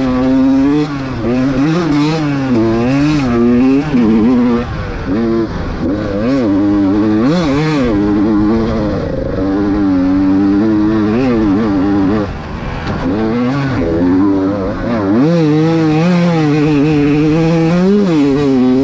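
Enduro dirt bike engine being ridden hard, its pitch climbing and dropping again and again with throttle and gear changes, with a brief lull about twelve seconds in.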